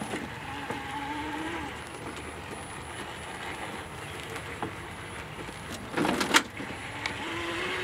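Yarbo tracked yard robot's electric drive motors whining as it makes a tank turn in place on grass, the pitch shifting as it starts and stops turning. A brief loud noise about six seconds in.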